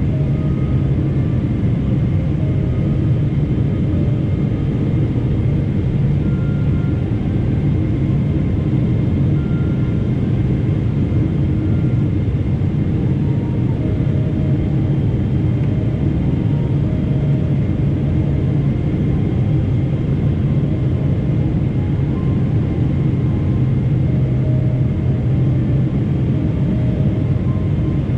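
Steady cabin noise of a Boeing 777 airliner in flight on its approach: an even low rumble from the GE90 engines and the airflow, heard inside the cabin by the window, with a faint steady high whine.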